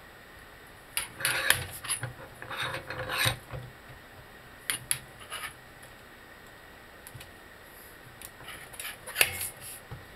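Metal clicking, scraping and rattling in three bursts, about a second, five seconds and nine seconds in, as the front control arm and the bushing-press tool are worked against each other in a bench vise.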